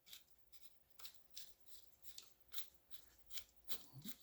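Depth-adjustment thumb wheel on a 16-gauge finish nailer being turned, its detents giving faint, evenly spaced clicks about two to three a second as the nail depth is set.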